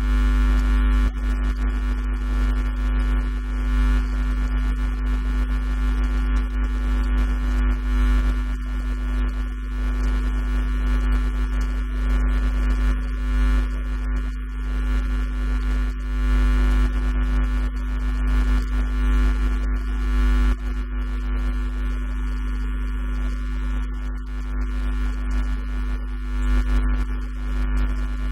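Loud, steady electrical mains hum: a deep drone with a stack of unchanging tones above it.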